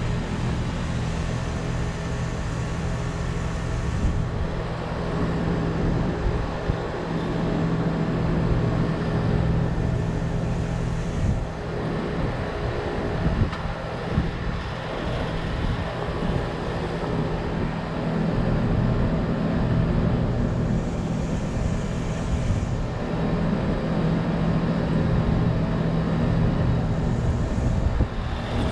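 Carrier Comfort heat pump outdoor unit running in its defrost cycle: a steady compressor hum with a hissing noise over it, easing slightly for a few seconds midway.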